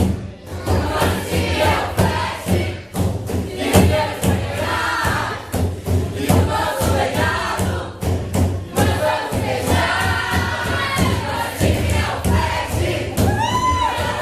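A crowd of voices shouting and chanting together over music with a steady bass, with many sharp thumps throughout.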